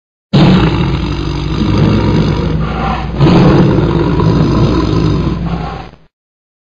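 A loud, deep logo sound effect that starts abruptly, surges a second time about three seconds in, and cuts off sharply near the end.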